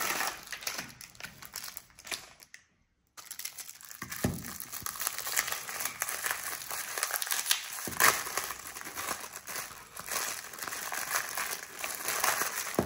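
Plastic wrapper of an okoshi peanut snack crinkling as it is handled and opened, with its inner wrapper. The sound cuts out briefly about two and a half seconds in, and there are a couple of light knocks.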